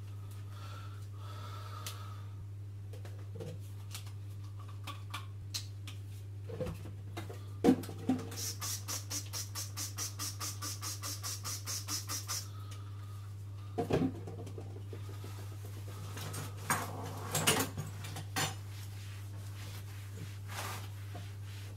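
Kitchen cleaning sounds: scattered knocks and clatter of things being picked up and put down on the worktop and cooker. In the middle, a fast, even scratching rhythm of about nine strokes a second lasts about four seconds. Under it all is a steady low hum.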